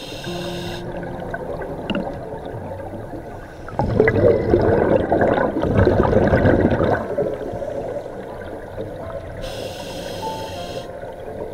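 A scuba diver breathing through a regulator, heard underwater. About four seconds in, an exhaled burst of bubbles gurgles for about three seconds and is the loudest sound. Near the end comes a short hiss as the diver breathes in.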